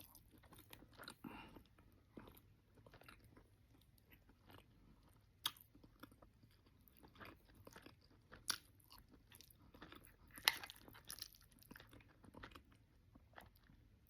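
Faint close-up chewing and lip-smacking of a mouthful of oxtails, cabbage and rice in gravy, with scattered short smacks; the loudest come about five and a half, eight and a half and ten and a half seconds in.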